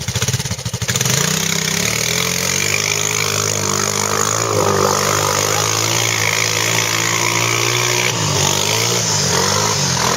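Quad (ATV) engine running under throttle, its pitch rising and falling. The note is choppy for about the first second, then steadies, dips about eight seconds in and climbs again.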